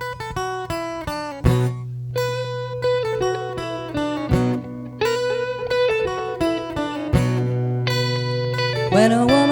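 Guitar intro to a blues song: picked notes over a sustained low bass note, with a singing voice coming in near the end.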